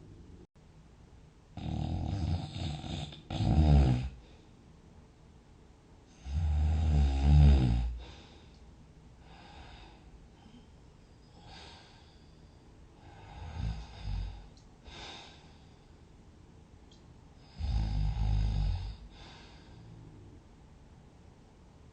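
A sleeping person snoring: loud snores about two, seven and eighteen seconds in, a softer double snore around fourteen seconds, and quiet sleep breathing in between.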